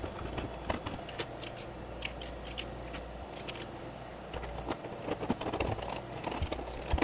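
A small hand file scraping in short, irregular strokes along the edge of a lightsaber hilt's crown piece, dulling a sharp edge, with a brief lull part way through.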